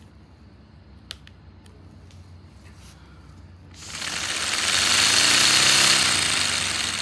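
A paper four-cylinder radial air engine model running briefly on low-pressure air, its exhaust blowing through a paper turbocharger: a loud rush of air with fast pulsing that starts a little over halfway in. Its pitch rises and then falls as the engine speeds up and runs down. A small click comes about a second in.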